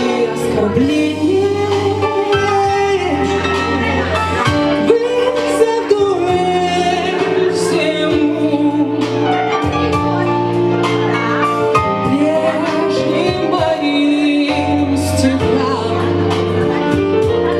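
A slow blues song with a woman singing long, gliding notes over instrumental backing.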